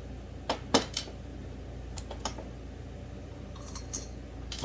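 A few sharp clicks and light taps of metal tools and chainsaw parts being handled during disassembly, over a steady low hum.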